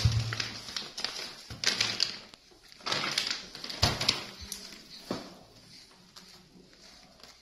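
Plastic bag crinkling as it is handled, in several short rustling bursts that die away after about five seconds.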